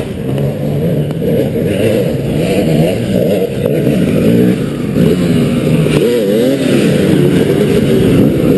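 Several enduro dirt-bike engines revving hard at once, their pitches rising and falling as the riders work up a muddy hill climb.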